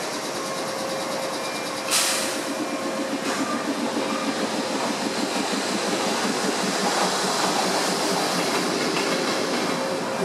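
JR 415 series electric train pulling out of the platform. About two seconds in comes a sharp burst of compressed-air hiss, with a smaller one a second later, typical of the air brakes releasing as it starts off. Then motor and wheel noise builds as the train gathers speed, over a steady hum.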